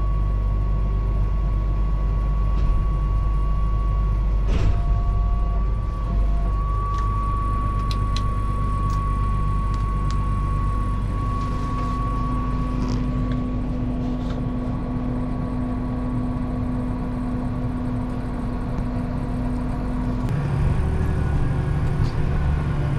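Massey Ferguson tractor's diesel engine running steadily while driving, heard inside the cab, with a thin steady whine over it for the first half. About 20 seconds in the engine note changes as the gears are shifted up.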